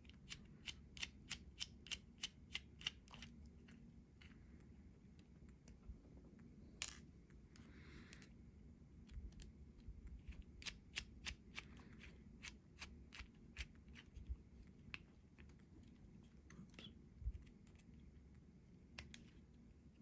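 Small sharp clicks and ticks from a hex driver working tiny bolts out of a 1/24-scale RC crawler's chassis. They come in quick runs with pauses between. One louder click about seven seconds in is followed by a brief scrape.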